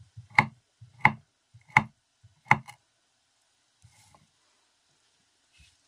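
Chef's knife slicing a sausage into rounds on a wooden cutting board: four sharp knocks of the blade on the board, evenly spaced a little under a second apart, then the cutting stops.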